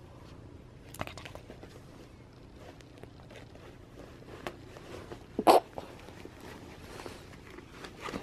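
Denim jeans rustling and scraping on carpet as they are handled with a cat wriggling inside one leg, with one short, louder bump about five and a half seconds in.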